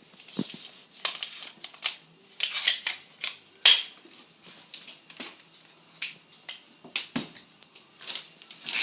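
Irregular handling noise: a dozen or so short, sharp clicks and taps, the loudest about a third of the way in.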